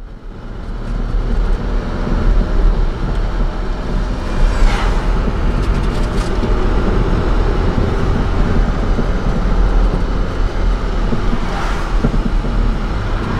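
Engine and road noise heard inside a Jeep Grand Cherokee towing a caravan uphill: a steady low rumble. Oncoming vehicles swish past twice, about four and a half and eleven and a half seconds in.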